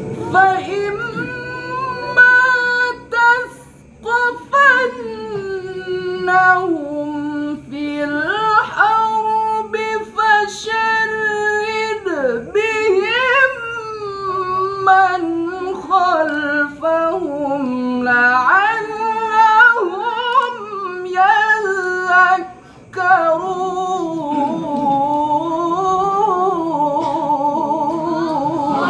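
A single high male voice chanting Qur'an recitation (tilawah) in long, ornamented held notes that glide up and down, in the style of maqam Nahawand. It pauses briefly for breath twice.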